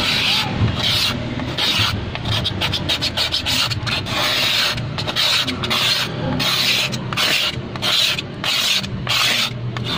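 A hand scraper rasping across an LCD panel, scraping off leftover backlight adhesive softened with lacquer thinner. It comes in repeated uneven strokes, roughly one a second.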